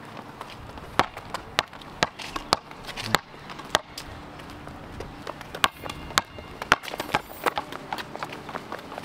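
Footsteps on a concrete sidewalk: a run of irregular sharp taps, spread unevenly over several seconds.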